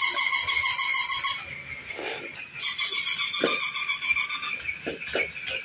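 Plush robot toy dog giving out a high, rapidly pulsing electronic sound in two bursts of about two seconds, with a short break between them.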